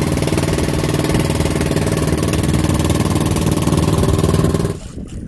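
Motorboat engine running steadily at a constant speed, then stopping abruptly near the end.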